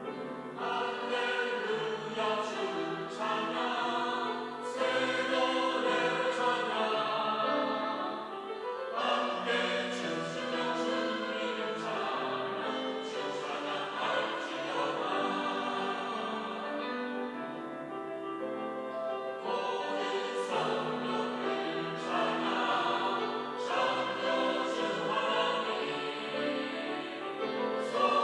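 Church choir singing its Sunday anthem.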